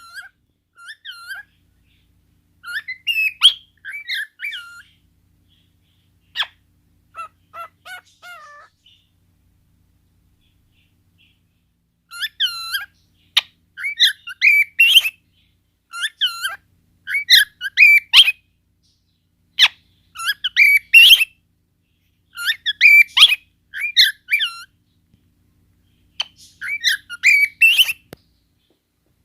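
Cockatiel chirping and whistling in short repeated phrases, falling quiet for a few seconds about a third of the way in, then calling louder and more often.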